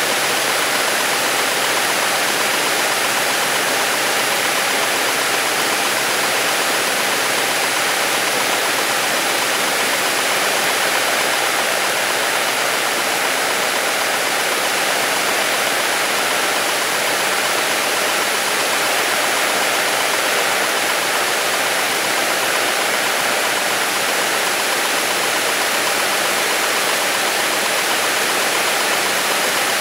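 Beechcraft Bonanza's piston engine and propeller at takeoff power, heard inside the cabin as a steady, even drone mixed with rushing air noise through the takeoff run and initial climb.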